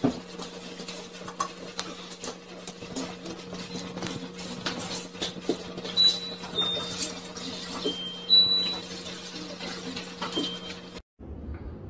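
Cats eating from shallow dishes on a hard floor: many small, irregular clicks and taps over a steady low hum, with a few short high peeps in the second half.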